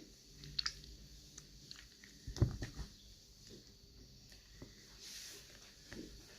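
Slime being squished and worked in the hands: scattered soft clicks and pops, the loudest about two and a half seconds in.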